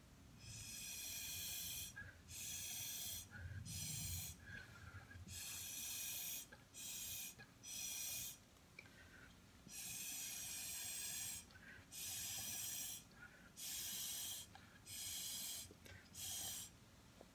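Breath blown through a drinking straw: about fifteen hissing puffs, each from a fraction of a second to a second and a half long, with short pauses for breath between.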